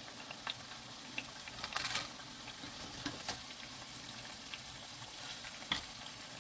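Battered sweet potato slices deep-frying in hot oil with a steady sizzle, and a few light clicks as tongs turn the slices in the pot.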